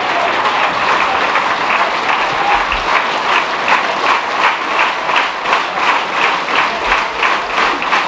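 Football crowd clapping: a general crowd noise that settles, about three seconds in, into steady rhythmic clapping of about three claps a second.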